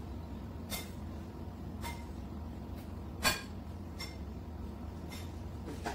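A spoon clinking against bowls in several light, separate clinks, the sharpest about three seconds in, over a steady low hum.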